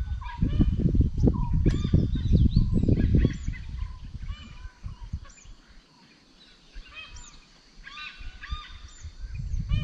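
Several birds calling and chirping, short rising and falling notes, with irregular low thumps and rumble over the first three seconds from handling camera gear close to the microphone.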